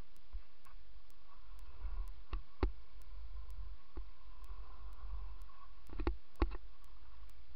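Kick scooter's wheels rolling over concrete and asphalt, a low steady rumble, with sharp clacks from the deck and wheels over bumps: two a couple of seconds in, one around four seconds, and a quick cluster about six seconds in.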